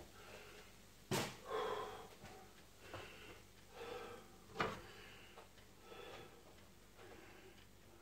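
Two sharp knocks about three and a half seconds apart, with short, soft rustling sounds between them, as someone handles things in a kitchen.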